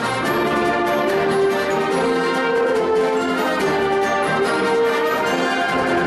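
A full concert band playing live: brass, saxophones and clarinets together in held chords that change every half second to a second.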